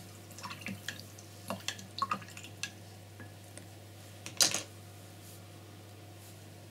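Light clicks and taps from handling painting tools, such as a brush against a paint tray or jar, with one louder clack about four and a half seconds in. A steady low electrical hum sits under it.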